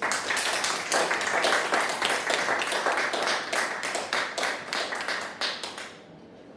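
Audience applauding: a dense patter of many hands clapping that starts at once and dies away after about six seconds.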